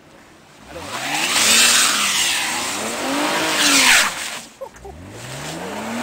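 Rear-wheel-drive BMW sedan's engine revving up and down three times while the rear tyres spin in snow, a loud hiss of wheelspin over the first two revs; the car is stuck, getting no traction.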